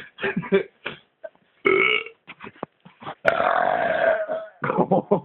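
A man belching loudly: a short belch about a second and a half in, then a long drawn-out belch held for over a second.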